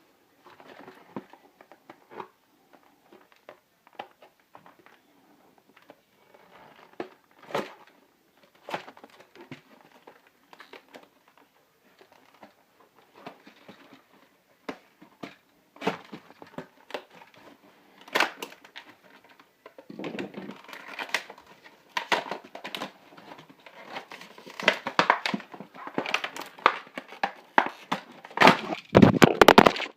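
Plastic blister packaging being crinkled, pried and torn open by hand to free a USB charger wall receptacle: scattered crackles and rustles, sparse at first and busier and louder through the second half, with a heavier handling knock near the end.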